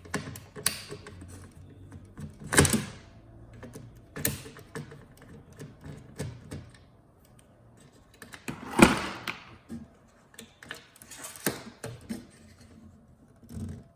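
Irregular clicks and knocks of parts and tools being handled on a partly dismantled flat-screen TV, the loudest knocks about two and a half and nine seconds in.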